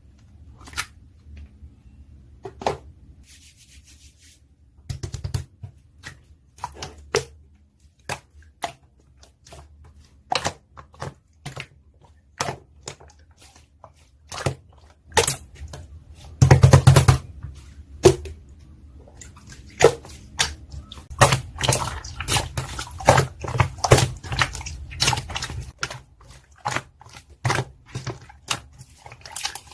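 Slime being played with by hand, giving irregular sharp clicks and pops. A louder burst lasting about a second comes a little past halfway, and the clicks come faster in the last third.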